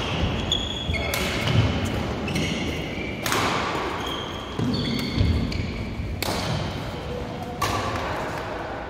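Badminton rackets striking shuttlecocks in rallies, four sharp smacks a couple of seconds apart, with short high squeaks of shoes on the court mat between them.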